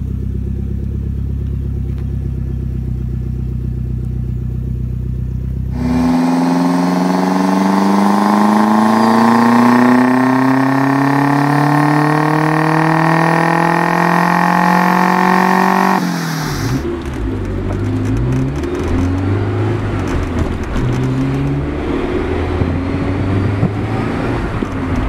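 Saab 900 Turbo's turbocharged 2.0-litre straight-four, first idling steadily. About six seconds in it goes to a full-throttle pull on a chassis dyno, its pitch climbing smoothly for about ten seconds before cutting off abruptly. After that the engine is heard from inside the cabin while driving, its pitch rising and falling through the gears.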